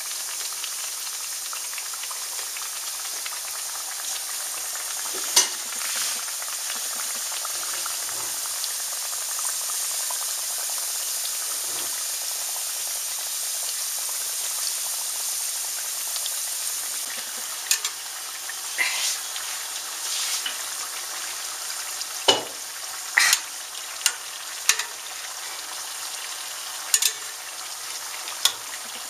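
Pieces of rondiaux dough frying in hot oil in an enamel pot: a steady sizzling hiss, with about a dozen sharp pops and clicks, most of them in the second half.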